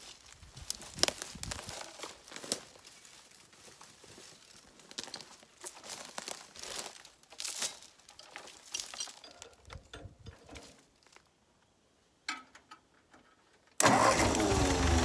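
Log chain links clinking and dry brush crackling as a chain is worked around a log, with scattered sharp clicks. About a second before the end the Ford 8N tractor's four-cylinder flathead gasoline engine comes in abruptly, running steadily and much louder.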